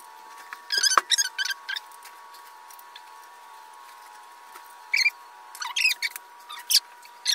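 Scooter handlebars being fitted onto the fork and clamp: two short runs of sharp clicks, knocks and scrapes from the metal parts, one about a second in and another from about five to seven seconds.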